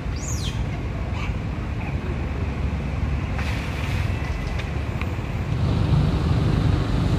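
Wind rumbling on the microphone, getting louder near the end, with one short high call that falls in pitch just after the start.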